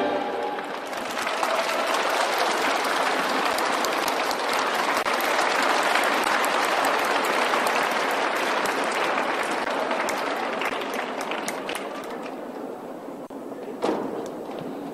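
Audience applauding and clapping after a figure skating program ends, dense at first and thinning out over the last few seconds, with a single short knock near the end.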